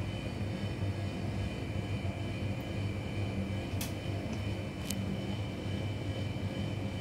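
A steady low mechanical hum, like a motor or fan running, with two faint clicks around the middle.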